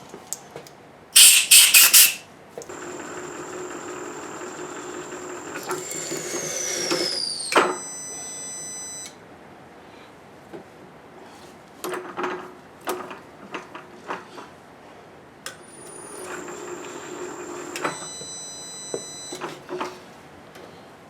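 A milling machine spindle runs in two short spells, each a steady hum with a high whine that falls in pitch as the spindle slows and stops. There is a brief loud metallic clatter about a second in, and light knocks of tooling between the spells.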